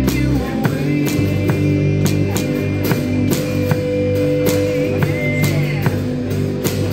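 Live rock band playing, the drum kit keeping a steady beat under held instrument notes.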